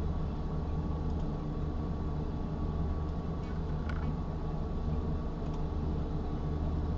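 Steady low machine hum, with two faint mouse clicks about four and five and a half seconds in.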